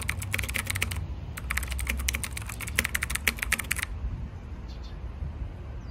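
Computer keyboard typing sound, rapid key clicks in a run of about a second, a short pause, then a longer run of about two and a half seconds that stops about four seconds in, over a low steady rumble.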